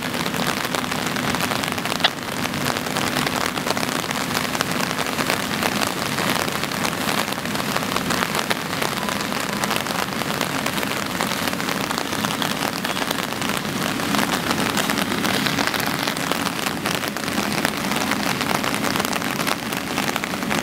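Rain falling steadily, a dense hiss of many small drop hits, with a faint steady low hum underneath and a single sharp knock about two seconds in.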